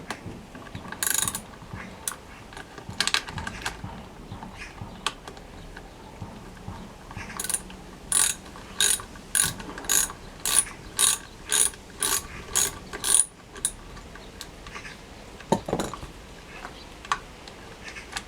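Ratchet wrench being worked in short strokes: a couple of brief clicking runs, then a steady series of about a dozen strokes, roughly two a second, as fasteners are turned on the outboard motor. A single knock follows near the end.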